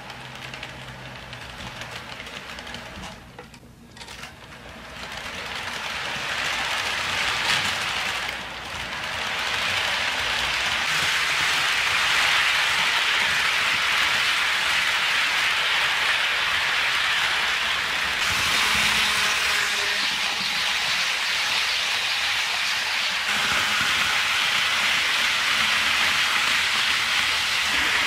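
HO scale model freight train running on sectional track: a steady rush of wheels rolling on the rails and the locomotive's motor, fainter at first and building to a steady level from about five seconds in as the cars pass close by.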